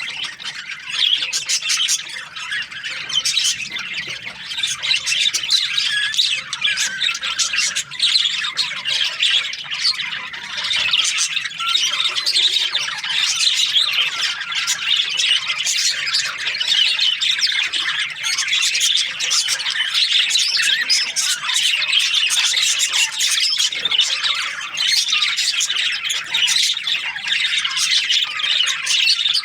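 A flock of budgerigars chattering: a dense, continuous mass of overlapping chirps and squawks.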